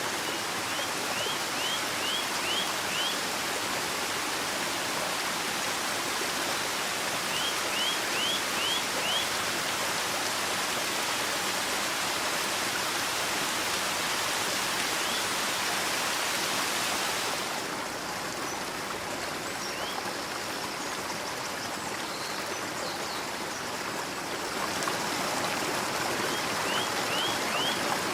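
Steady rushing of a flowing stream, with a bird calling short runs of quick rising chirps three times, four to six notes in each run. The rushing softens for several seconds in the second half.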